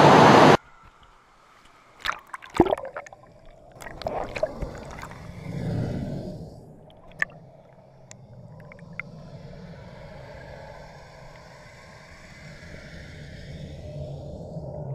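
Water-park current channel heard first above the surface, a loud rush of churning water that cuts off after about half a second, then from underwater: muffled gurgling and surging of the current jets, with a cluster of sharp knocks two to three seconds in and a steady hissing hum through the second half.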